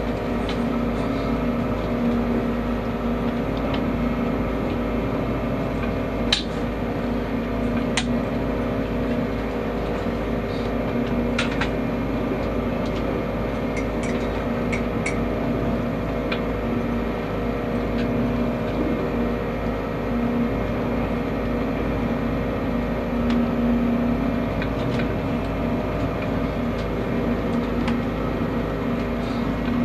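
A pleasure cruiser's inboard diesel engine running steadily at cruising speed, heard from on board as an even drone with a low hum, and a few sharp clicks about six, eight and eleven seconds in.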